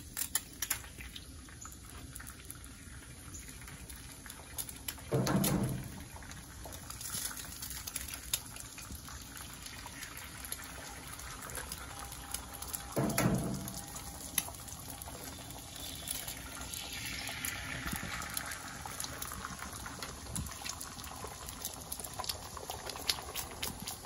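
Eggs frying in silicone egg rings on a hot Blackstone flat-top griddle greased with bacon fat: a steady sizzle with scattered spattering pops, getting stronger in the second half. Two louder bursts, about five and thirteen seconds in, as eggs go into the rings.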